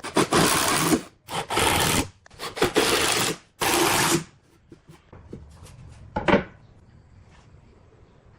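A hand tool working wood in rough scraping strokes: four long strokes in quick succession, then a few light clicks and one short stroke a little after six seconds.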